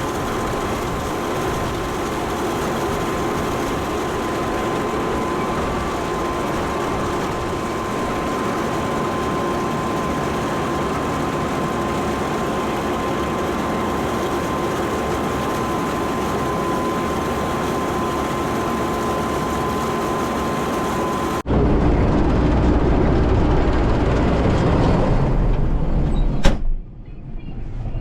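Combine harvester running steadily while cutting soybeans, a constant machine drone with a thin steady whine over it. About 21 seconds in the sound changes abruptly to a deeper, heavier running noise, and a single sharp click comes near the end.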